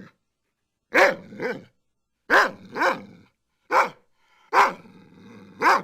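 German Shepherd barking: about seven short, loud barks, mostly in pairs. A low growl runs between the last barks.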